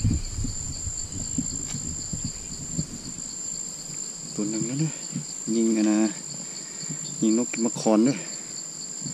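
Steady, unbroken high-pitched insect drone from the forest, two even tones held throughout, with low rumble in the first few seconds.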